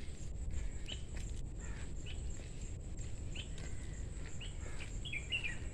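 A bird gives short rising chirps about once a second, with a quicker run of notes near the end, over a low steady rumble.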